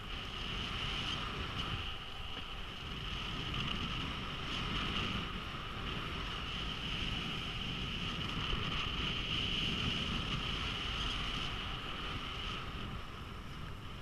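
Skis sliding over packed, groomed snow with a steady hiss, with wind buffeting the microphone during a downhill run.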